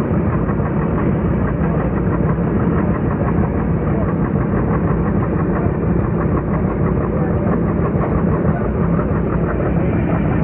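Tractor engine running steadily, a continuous drone that holds its level throughout.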